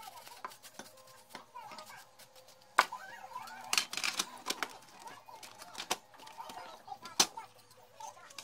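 Sheet-metal parts of a TV's control-box housing being handled and fitted together: scattered clicks and light metallic knocks, with two sharp knocks about three and seven seconds in and a busy patch of handling noise around four seconds in.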